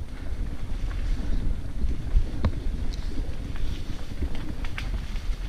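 Wind buffeting the microphone and tyre rumble from a mountain bike riding down a dirt trail, with scattered clicks and rattles from the bike; one sharper knock about two and a half seconds in.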